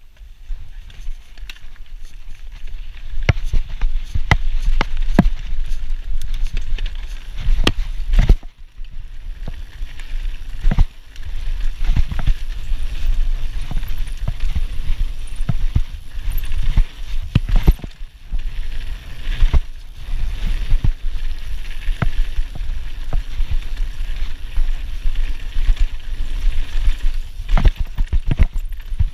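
Mountain bike ridden fast down a rough dirt and gravel trail: wind rush on the microphone with tyre noise on loose ground, and frequent sharp rattles and knocks from the bike over bumps. The noise starts about half a second in as the ride begins.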